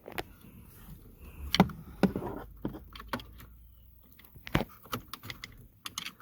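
Scattered sharp clicks, taps and scrapes of a screwdriver prying at the plastic retaining tabs of a car's ignition switch in the steering column, with a light jingle of keys, the loudest click about a second and a half in.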